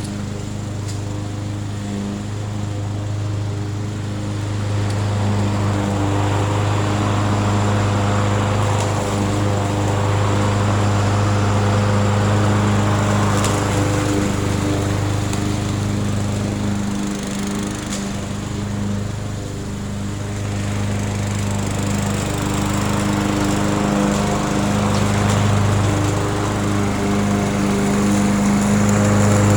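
Murray 22-inch self-propelled lawn mower's small engine running steadily, its level swelling and dipping slowly.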